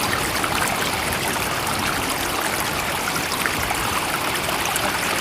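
Steady running water, a continuous even rush with fine trickling detail and no rise or fall in level.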